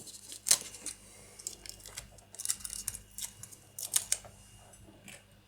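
Small plastic model-kit parts being handled and set down on a tabletop: a scatter of light clicks and taps with faint rustling, the sharpest click about half a second in.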